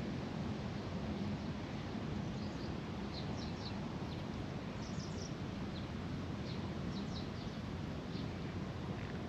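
Outdoor ambience: a steady low background hiss and rumble, with small birds giving short high chirps in several quick groups through the middle.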